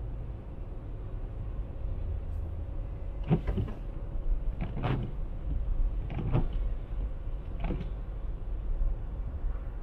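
Steady engine and road rumble heard from inside a car cruising on a highway, with a few short rattling clicks from inside the cabin about a third of the way through and again later.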